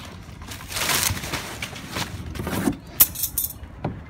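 Thin plastic wrapping rustling and crinkling as it is pulled off a carbon fiber trunk lid, followed about three seconds in by a few sharp clicks and then a single knock.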